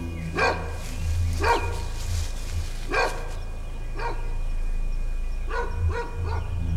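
A dog barking repeatedly: single barks spaced a second or so apart, then three quick barks in a row near the end, over a low steady drone.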